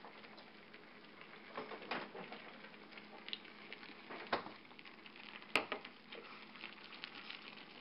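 Pot of mung bean soup simmering on a gas burner, with a faint bubbling patter and scattered small ticks. Sharp clicks of kitchen items being handled come a little past four seconds in and again at about five and a half seconds; the second is the loudest.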